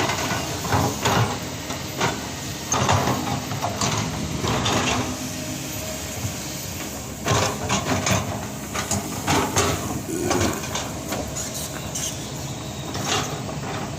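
Diesel engine of heavy earth-moving machinery running steadily, with repeated sharp metallic clanks and scrapes scattered through.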